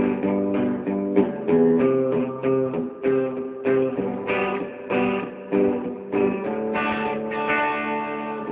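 Guitar chords strummed in a steady rhythm, the instrumental intro of a song before the vocals come in.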